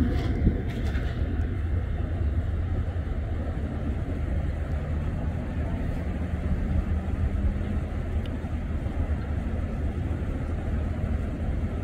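Steady low rumble of vehicle engine noise, with a faint pitched hum rising in the middle.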